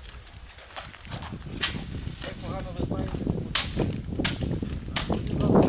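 Four sharp knocks or bangs, a second or so apart, over low background noise, the kind of impacts heard on a building site.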